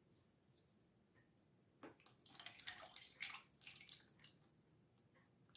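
Used cooking oil poured from a stainless steel pot into a plastic bucket. After a quiet start there is a brief knock about two seconds in, then the oil stream splashes into the bucket unevenly for about two seconds before it goes quieter.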